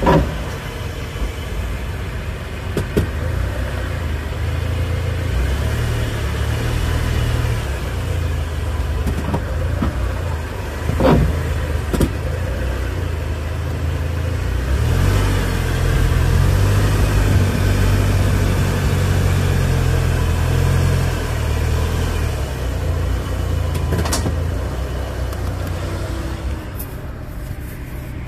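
Subaru Legacy driving on a paved road, heard at the side of the car: a steady low rumble of tyres, wind and engine, with a few sharp knocks, the loudest about eleven seconds in. It eases off near the end.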